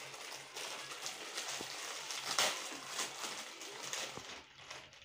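Crinkling and rustling of plastic crisp packets being torn open and handled: a dense crackle of many small ticks that dies down near the end.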